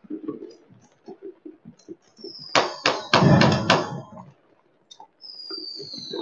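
Fireworks and firecrackers going off: a cluster of loud bangs about two and a half seconds in, with smaller scattered pops around them. A high whistle slides slowly down in pitch near the end.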